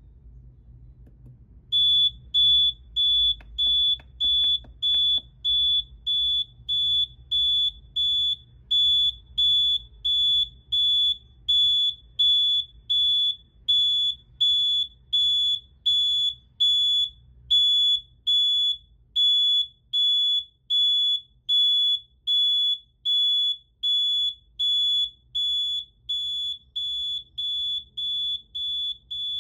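SFM-17 piezo alarm buzzer sounding a shrill, high-pitched intermittent beep, just under two beeps a second at an even rate. It starts about two seconds in, with low hum and a few faint clicks underneath.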